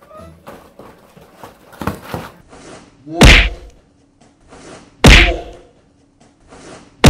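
Three loud, identical thunks about two seconds apart. Each comes right after a short swish and drops quickly in pitch. They sound like comic hit sound effects added in the edit.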